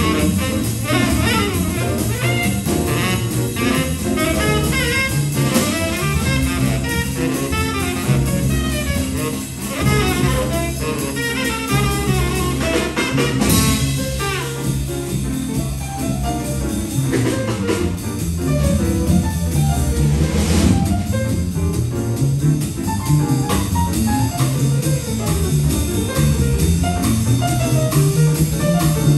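Live jazz quartet playing: a saxophone leads over piano, upright double bass and a drum kit with cymbals.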